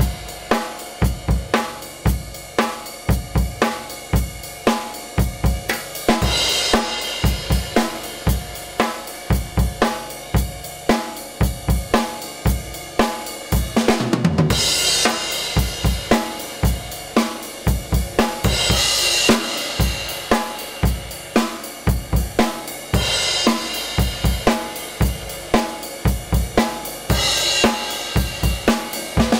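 Drum kit played: a steady beat of kick and snare hits with hi-hat, and crash cymbals every few seconds. There is a brief break in the playing about halfway through.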